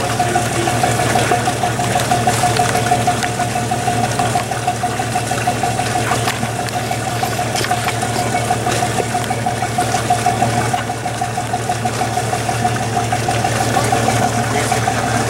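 A ship's engine idling steadily: a constant low drone with a steady, slightly pulsing mid-pitched hum over it.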